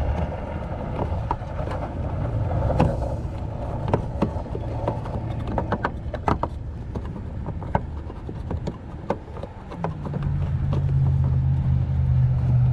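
Small plastic clicks and scrapes from a hand fitting the headlight's dust cap over the low-beam bulb, over a steady low hum. A steadier low drone comes in about ten seconds in.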